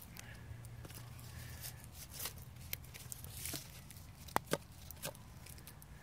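Handling noise as a 4-inch ball shell firework is loaded into its mortar tube: rustling and crinkling with scattered sharp clicks, the loudest two close together about four and a half seconds in.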